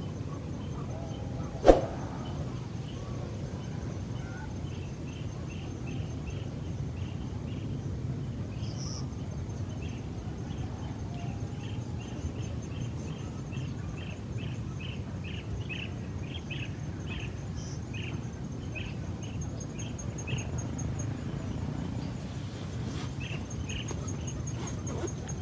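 Outdoor ambience with a steady low rumble. A single sharp click sounds near the start. Then a small bird chirps over and over, two or three short high chirps a second, for much of the stretch.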